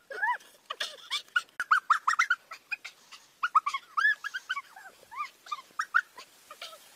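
A chicken squawking in distress as it is held upside down by its legs: a rapid run of short, arching cries with brief pauses between bursts.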